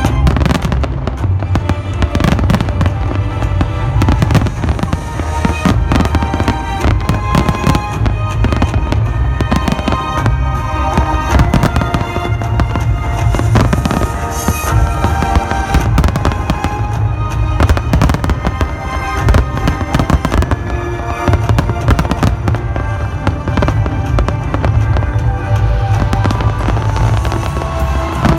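Fireworks display: bursts and crackles going off in quick succession, over loud music with a heavy bass.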